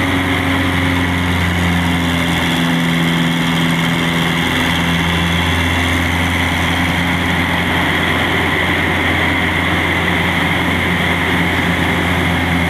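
Light aircraft's piston engine and propeller droning steadily at a constant pitch, heard loud from inside the cockpit.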